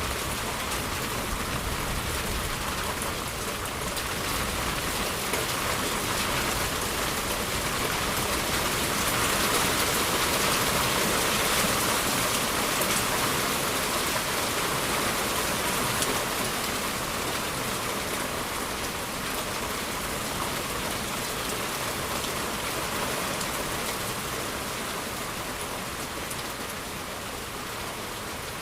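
Rain falling steadily, a dense hiss of drops that swells a little about ten seconds in and eases slightly near the end.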